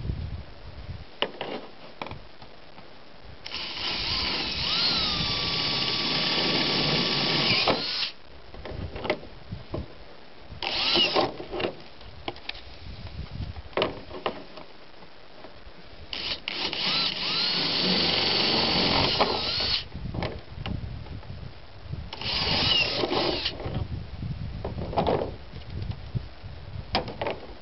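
Cordless drill with a twist bit boring holes through a plastic bucket lid, running with a steady whine twice for several seconds and twice briefly. Short light knocks come between the runs.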